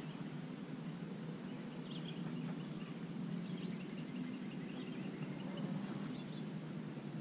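Quiet outdoor ambience: a steady low background noise with faint, scattered high chirps.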